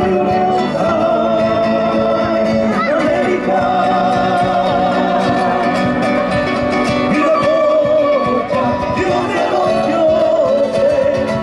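Live Bolivian folk music: a band of acoustic guitars and other instruments with a singer holding long sung notes.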